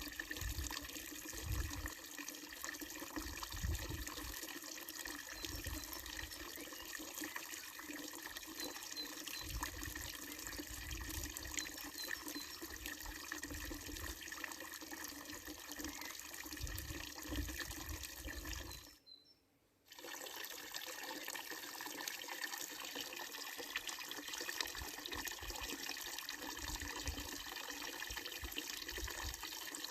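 Water running steadily from a wooden trough fountain's spout and splashing into its basin, with low rumbles coming and going underneath. About two-thirds of the way through, the sound drops almost to nothing for about a second, then resumes.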